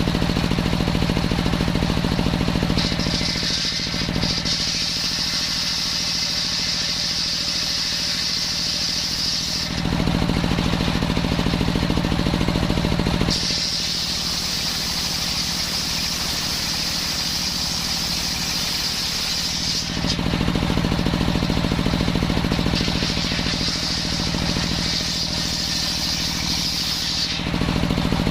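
Engine-driven circular saw cutting coconut-palm wood: three cuts of several seconds each, with a high-pitched whine from the blade in the wood, and between them the engine and blade running free with a steady lower hum.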